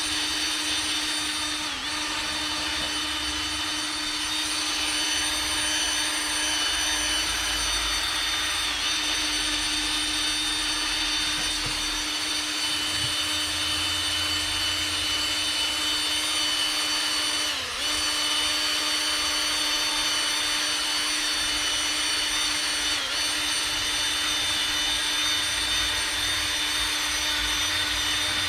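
Electric drill spinning a pad with polishing compound against a plastic headlight lens, with a steady high whine. The pitch sags briefly a few times as the pad is pressed harder.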